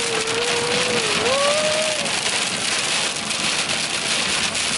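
Hail and heavy rain pelting a car's roof and windshield from inside the cabin, a dense steady clatter of many small hits. A wavering tone rises and falls for about the first two seconds.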